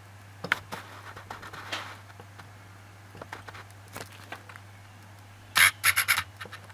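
Handling noise: scattered light clicks and rubbing, then a loud cluster of short scratching scrapes about five and a half seconds in, as the camera is moved and refocused close on the phone. A steady low hum runs underneath.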